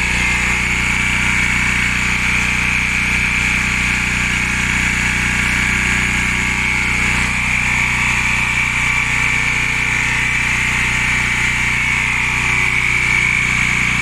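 Air compressor running steadily, with a constant motor hum and a high whine.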